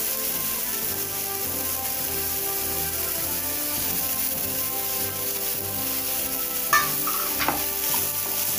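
Onions, green chillies and freshly added capsicum frying in oil in a kadai, with a steady sizzle. A spatula stirs through them and knocks against the pan a couple of times near the end.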